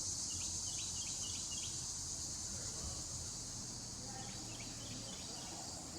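Steady, high-pitched chorus of crickets and other insects, with a run of short high chirps in the first two seconds and a few more about two-thirds of the way through.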